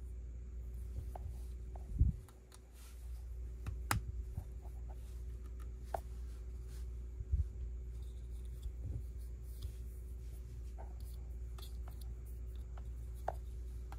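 Lego bricks being handled and pressed together: scattered small plastic clicks and rustling, with soft thumps about two seconds in and again a little past seven seconds, over a steady low hum.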